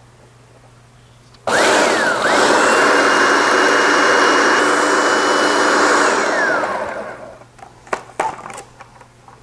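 Food processor motor and blade running through graham cracker crumbs and melted butter: it starts suddenly about a second and a half in with a rising whine as it spins up, runs steadily for about four seconds, then whines down as the blade coasts to a stop. A few light clicks follow near the end.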